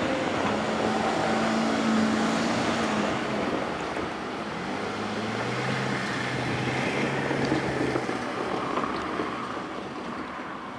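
Vehicle engines running with road noise: a steady hum that drops in pitch about halfway through, then fades slightly near the end.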